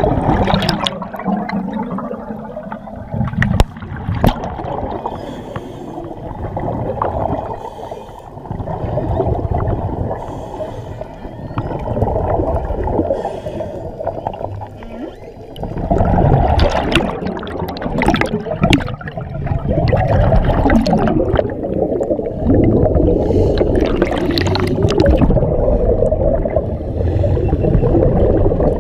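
Muffled water sloshing and gurgling as heard underwater, with sharp clicks now and then, several of them close together in the second half.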